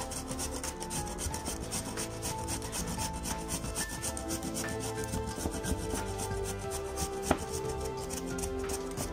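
A raw potato being peeled: quick, repeated scraping strokes of the blade across the skin, with one sharper tap about seven seconds in. Soft background music plays underneath.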